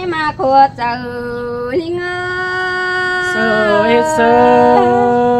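A voice singing a Tai (Thái) folk love song in long, drawn-out, wavering held notes that slide from one pitch to the next. A second, lower held note comes in about three seconds in.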